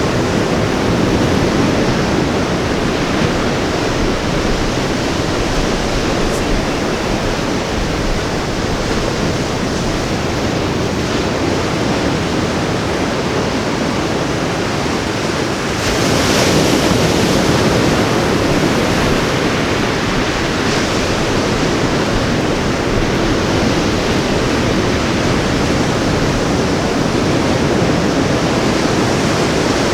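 Ocean surf washing steadily onto a beach, with a wave breaking louder a little past halfway.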